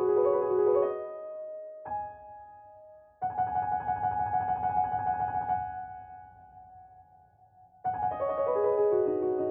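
Background piano music: a repeating figure of notes, a single note, then a held chord that fades away, and a new phrase of falling notes near the end.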